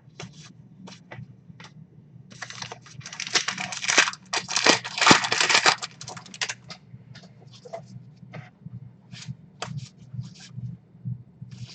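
Baseball trading cards being flipped through by hand: a run of quick card snaps and slides, with a denser stretch of rustling and sliding from about two and a half to six seconds in.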